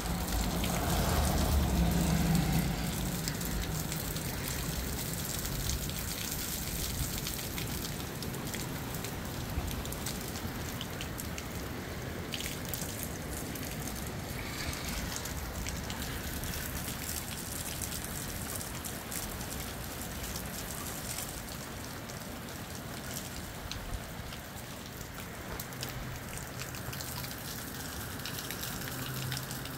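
Moderate rain falling steadily in a storm, with a louder low rumble in the first two or three seconds.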